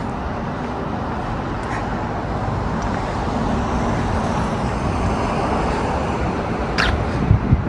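Steady road traffic noise, swelling slightly midway, with a brief sharp sound and a few low thumps near the end.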